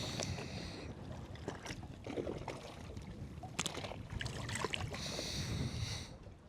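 Water lapping and slapping against the hull of a small fishing boat, with a low rumble, two passing washes of hiss and a few sharp knocks and clicks from handling gear on board.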